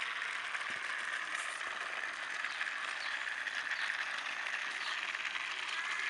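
Battery-powered Motorized Railway toy train engine running on its track: the small motor and gears make a steady whirring rattle, with faint clicks over it.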